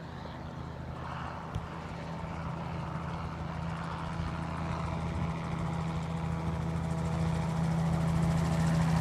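MTO Sport autogyro's engine and propeller droning as the aircraft flies in low, the steady hum growing steadily louder as it approaches.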